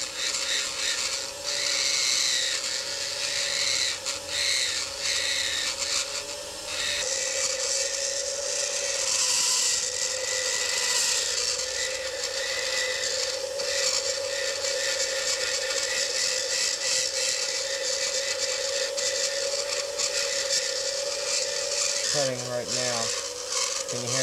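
Small high-speed rotary tool running at a steady pitch, its bit grinding into acrylic with a hissing scratch.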